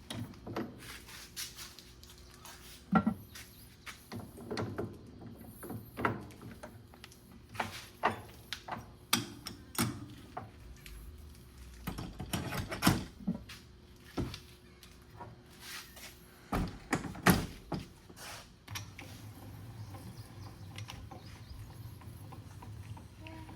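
Irregular metallic clunks, knocks and clacks as a steel PTO yoke is handled and clamped into a lathe chuck. Near the end the knocks stop and a steady low hum takes over.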